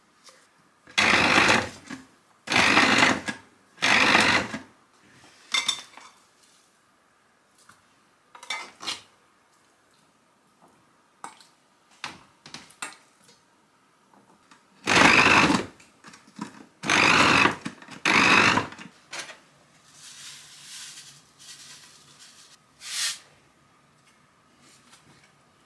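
Panasonic electric food processor run in short pulses, its motor and blade chopping raw chicken chunks into mince along with potato starch. Five loud bursts of about a second each: three in quick succession near the start, two more about halfway through, with light clatter from the bowl and spoon between them.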